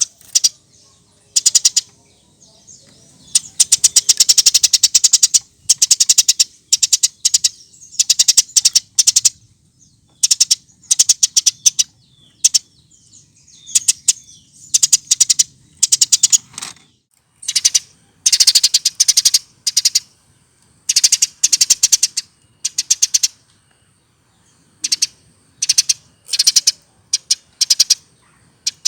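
Eurasian tree sparrows chirping and chattering loudly in rapid bouts of fast-repeated high notes, each bout lasting one to two seconds, with short pauses between.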